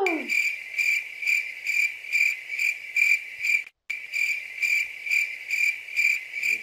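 Cricket chirping at about two chirps a second, with a brief dead gap a little past halfway before it resumes. It is the stock 'awkward silence' cricket sound effect laid in after a joke falls flat.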